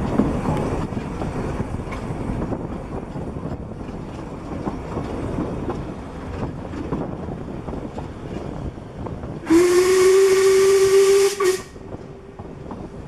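Narrow-gauge steam locomotive No 7 'Tom Rolt' blowing its whistle once, a single note that slides up slightly as it opens and holds for about two seconds before cutting off, near the end. Under it, the steady running noise of the train on the rails.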